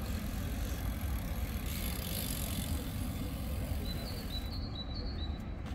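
Outdoor background: a steady low rumble, with a swell of hiss about two seconds in and a few short high chirps near the end.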